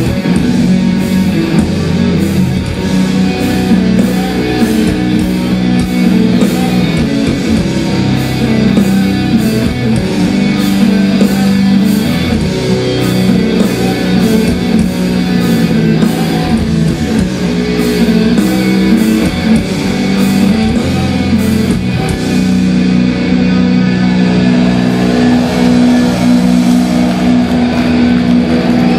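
Death metal band playing live and loud: heavily distorted electric guitars and bass holding low chords over a steady drum beat with regular cymbal hits, with no vocals in this stretch.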